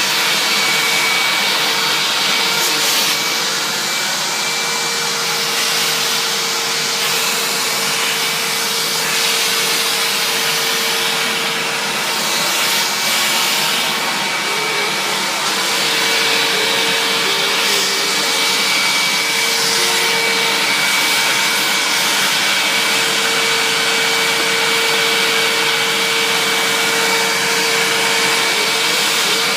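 Hoover upright vacuum cleaner running steadily, a constant motor whine over the rush of suction air.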